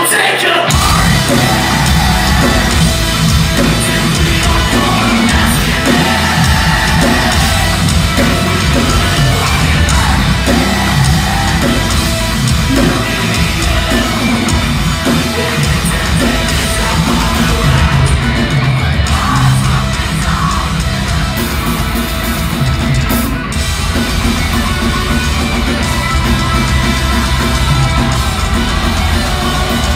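Metalcore band playing live: distorted guitars, bass and drums with shouted vocals, at full loudness. The full band comes crashing in about half a second in and keeps going, heard from within the crowd.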